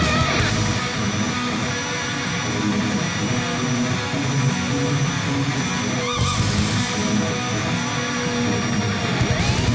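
Background rock music with guitar, and a rising whine near the end.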